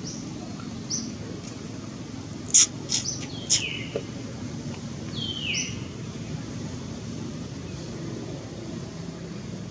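Birds chirping: several short, high chirps, a few sliding quickly downward. They are busiest about two and a half to four seconds in and come again around five and a half seconds, over a steady low background rumble.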